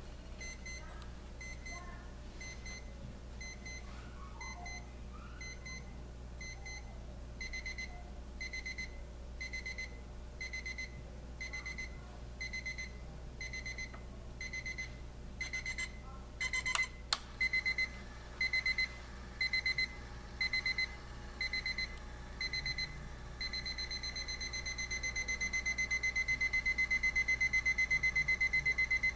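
Crosley 33860 quartz alarm clock's electronic alarm beeping at one high pitch, starting faint in short spaced beeps and getting louder in steps as the alarm escalates. Near the end it switches to a rapid continuous beeping, its loudest stage. A single knock sounds about halfway through.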